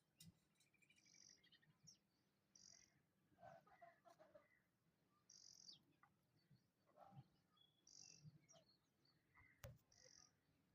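Faint bird chirps: short high calls repeating every second or two, with a few soft clicks between them.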